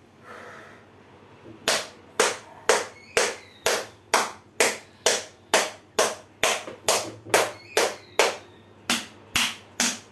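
Rhythmic hand slaps on a patient's body during a massage treatment, about two a second. They start a couple of seconds in, with one short pause near the end.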